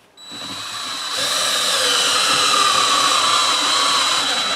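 Cordless drill driving a screw through carpet into a plywood floor. The motor builds up over about the first second, then runs steadily under load with a thin high whine, pulling the screw in tight.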